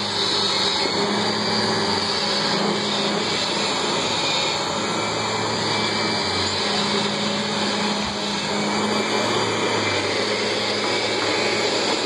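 Upright vacuum cleaner running on carpet: a steady motor noise with a constant low hum underneath.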